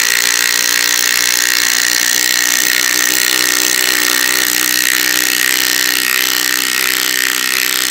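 Makita TW004G 40Vmax cordless impact wrench hammering continuously as it drives an M12 × 125 mm coach screw into a timber block.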